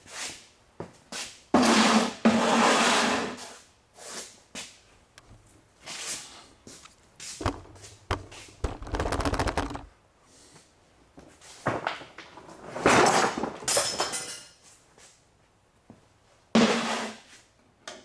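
Metal parts and hand tools clanking, rattling and scraping during work under a car, with a quick run of rapid clicks about halfway through.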